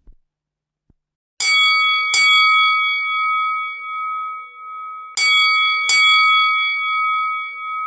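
Notification-bell chime sound effect: two pairs of bright bell dings, the two strikes of each pair under a second apart and the pairs about three seconds apart, each ringing on after the strike.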